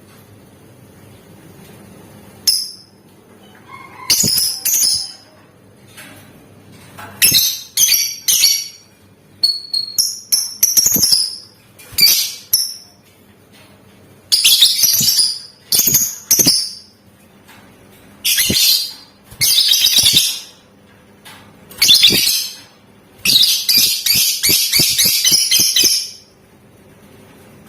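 Lovebird calling in repeated bursts of shrill, rapid chatter separated by short pauses, with the longest run, a dense rattling trill, near the end.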